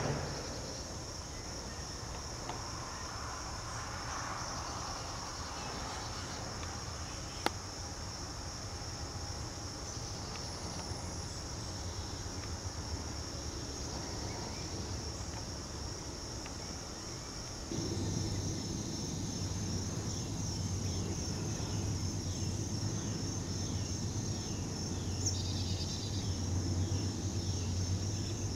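Steady high-pitched insect chorus of summer outdoors. About two thirds of the way through, a low steady hum sets in underneath it, and there is a single sharp click about a quarter of the way in.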